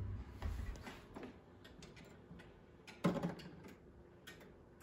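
Grandfather clock movement ticking faintly, with a louder knock about three seconds in as a hand handles the clock at the dial.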